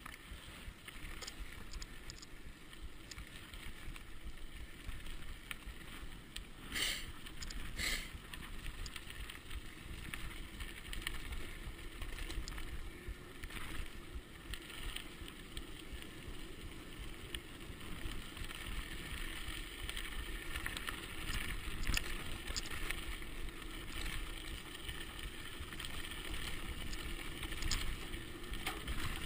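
Mountain bike rolling fast downhill on a gravel track: steady crunch and rumble of the tyres on the gravel, with wind on the microphone. Two sharp knocks about a second apart, about seven seconds in, as the bike hits bumps.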